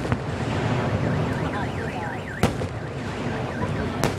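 Fireworks shells bursting with sharp bangs, the loudest about halfway through and another near the end, over a steady low rumble. A high warbling tone rises and falls quickly several times between about one and two and a half seconds in.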